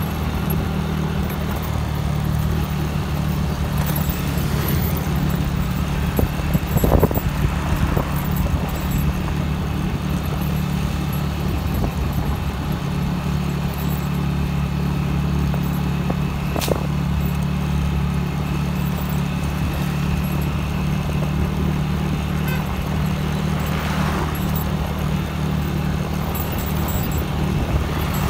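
Engine of the moving vehicle carrying the recorder, running steadily at road speed as a low hum under road and wind noise. A couple of jolts come about seven and eight seconds in, with a sharp click a little past halfway.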